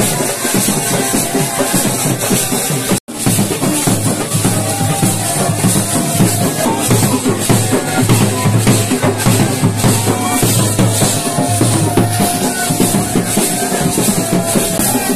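Dhol drums beaten with sticks in a fast dance rhythm. The sound cuts out for an instant about three seconds in.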